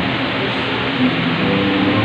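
Background music playing over the hall's loudspeakers, heard through a steady noisy hiss.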